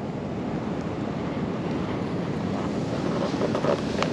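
Steady wind noise on the microphone mixed with the rush of ocean surf on a beach, with a faint click near the end.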